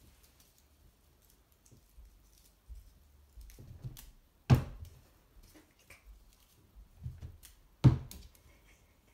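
Two sharp thumps about three and a half seconds apart, each with softer knocks and scuffs leading up to it.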